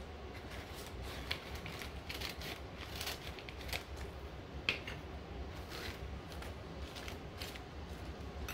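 Scissors snipping through the paper liners of small metal tins: a string of short, crisp snips at irregular intervals, with paper rustling between them.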